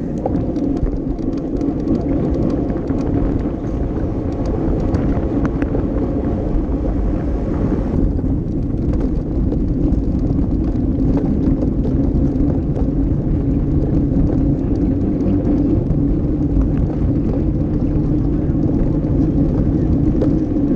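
Steady rush of wind on the microphone of a handlebar-mounted camera on a racing bicycle moving at speed, mixed with the rumble of tyres on the road.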